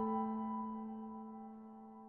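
Background music: a held keyboard chord, struck just before, slowly dying away.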